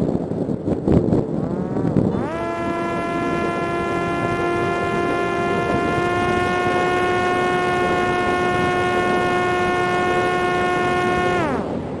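Parrot Disco's electric propeller motor whining. After a couple of seconds of wind noise it spins up about 2 s in, holds one steady pitch for about nine seconds, and winds down near the end.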